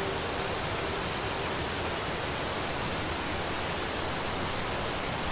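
Waterfall rushing over a rocky ledge: a steady, even rush of falling water.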